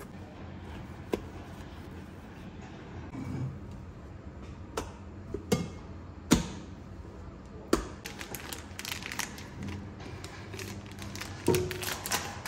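A silicone spatula stirring and scraping whipped cream in a stainless steel mixing bowl. It gives a handful of sharp knocks against the metal, with scratchy scraping in between.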